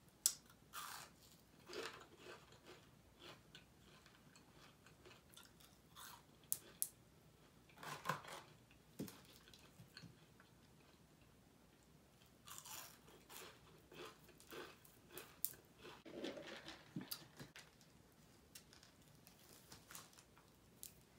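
Close-up eating sounds: crunchy chewing and bites of fried onion rings, coming in short crackly clusters separated by quiet pauses.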